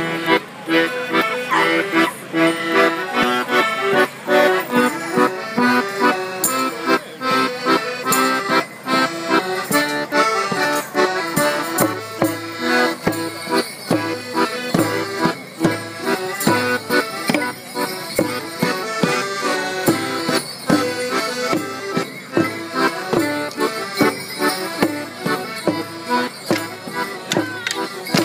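Accordion-led folk tune played for a morris stick dance, with the sharp clack of the dancers' wooden sticks striking together in time. A low thump on each beat joins about halfway through.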